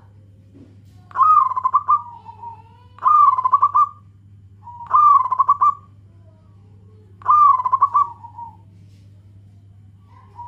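Zebra dove (perkutut) cooing: four loud staccato, trilled coos about two seconds apart, with a fainter coo near the end.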